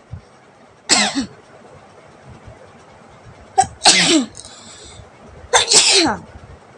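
A woman sneezing three times, one about every two and a half seconds, each a sharp burst that ends in a falling pitch.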